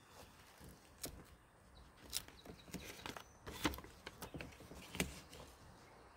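Paper template being pressed and creased by hand against a plastic car bumper: faint scattered crinkles and sharp little clicks, the loudest two about halfway through and near the end.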